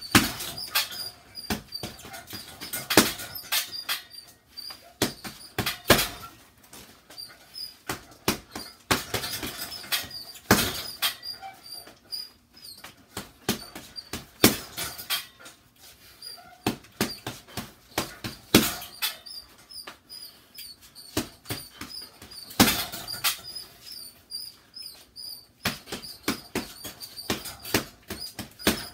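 Boxing-gloved punches thudding into a hanging punching bag in quick, irregular combinations, some strikes much louder than others. A small high squeak repeats regularly, roughly twice a second, beneath the blows.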